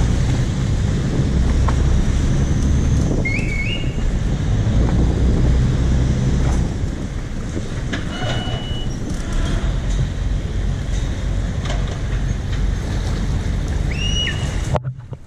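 Bangkok river taxi boat's engine rumbling, with water churning and wind along the hull; the rumble eases about two-thirds of the way through. A few short high chirps sound over it, and the sound cuts off abruptly just before the end.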